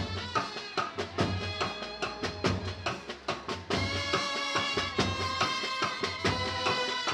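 Brass band with trumpets playing a tune over a steady drum beat.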